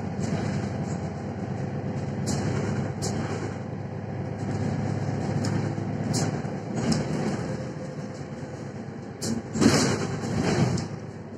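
Mercedes-Benz Citaro city bus heard from inside the passenger cabin while driving: a steady engine and road rumble, with frequent short clicks and rattles from the cabin. A louder rush of noise comes about nine and a half seconds in and lasts about a second before the sound quietens.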